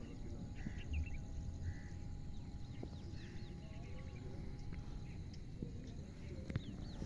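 Birds calling outdoors in short chirps and quick falling notes, heard over low wind rumble on the microphone.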